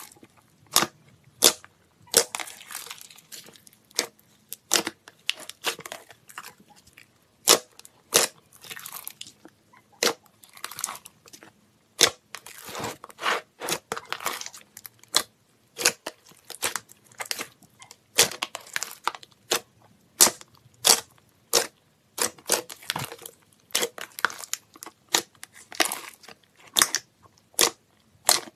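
Hands squishing, poking and folding thick slime, giving an irregular run of sharp pops and crackles as trapped air bursts, with softer squishing sounds between.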